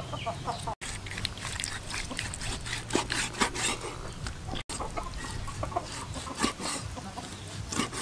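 Large kitchen knife cutting raw beef on a wooden chopping board, a run of irregular sharp knocks, with chickens clucking in the background. The sound cuts out briefly twice.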